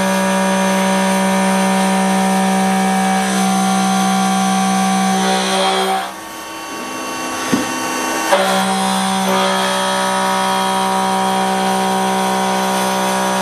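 CNC milling cutter with indexable inserts cutting a steel block, a steady pitched whine with many overtones. The whine drops away about six seconds in, with a click or two, and comes back about two seconds later.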